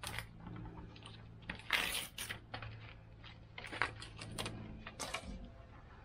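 Crinkling and clicking as the plastic base of a Poynting MIMO 2-in-1 rooftop antenna is handled and the paper backing liner is peeled off its adhesive pad. The sound comes in short irregular bursts, with the loudest crinkle about two seconds in, over a low steady hum.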